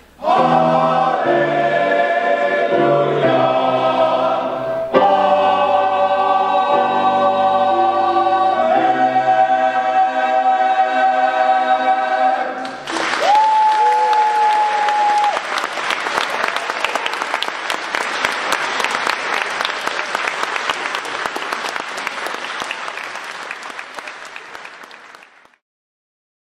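Male choir singing sustained chords, the last chord cutting off about halfway through. Audience applause follows and fades out near the end.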